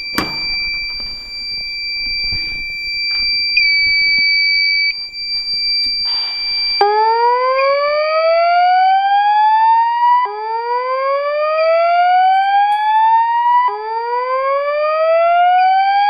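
Fire alarm system in alarm after a key-operated pull station is pulled. A steady high-pitched tone sounds, and about seven seconds in a voice-evacuation speaker starts a slow whoop: a rising sweep repeated about every three and a half seconds, over the continuing high tone.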